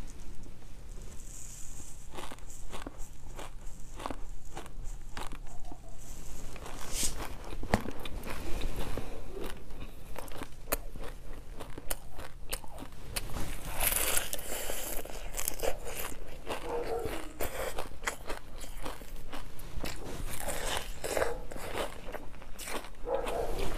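Close-miked crunching and chewing of food: many small crisp crackles in quick succession, growing louder about 14 seconds in and again near the end.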